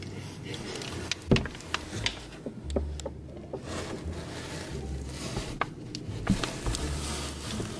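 A person drinking from a plastic bottle at close range: gulps and sharp clicks of the plastic, with rubbing and handling noise.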